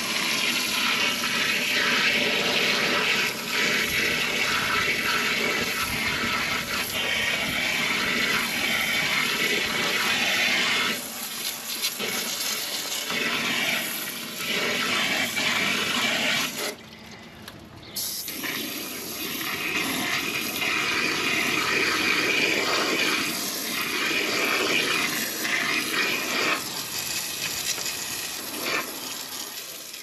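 Garden hose spray nozzle on its jet setting shooting water up into soffit vents and against the siding, a steady hissing rush with splashing, rinsing out loosened grime. The spray stops briefly a little over halfway through, then starts again.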